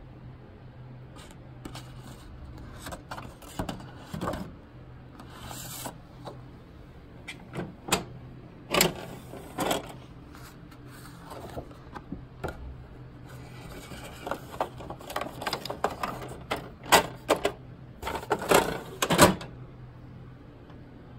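Paper sheets handled and slid into a printer's paper tray, with irregular rustles and the clicks and knocks of the plastic tray, the loudest clatter near the middle and again near the end. A low steady hum runs underneath.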